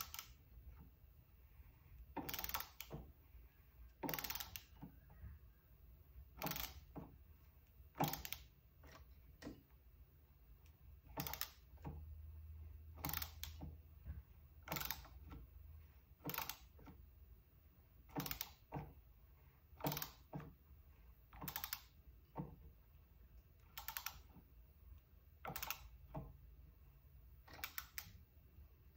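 Manual screwdriver driving a threaded insert into walnut through a drill guide: faint short clicks, sometimes in pairs, at each turn of the handle, about every one and a half to two seconds.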